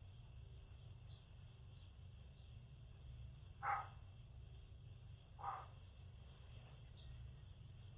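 A cricket chirping in even, short, high-pitched pulses, under two a second, over a low steady hum. Two brief louder sounds cut in about three and a half and five and a half seconds in.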